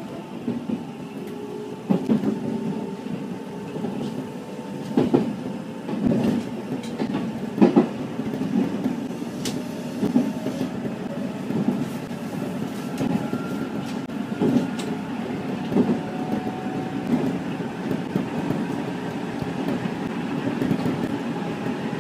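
Nankai electric train accelerating hard from low speed, heard from the driver's cab. The traction motors whine and rise slowly in pitch as it speeds up, over a steady running rumble. The wheels knock over points and rail joints, most often in the first few seconds.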